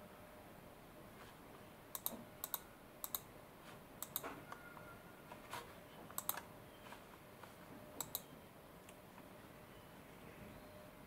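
A run of light, sharp clicks, most of them in quick pairs about a tenth of a second apart, scattered over several seconds against a faint steady hum.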